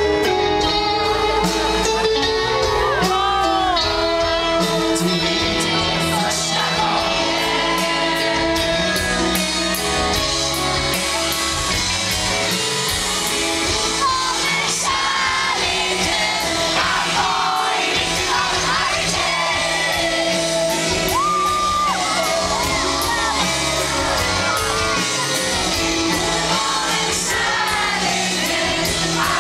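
Live rock band playing at full volume with a voice singing over it, and shouts and whoops mixed in.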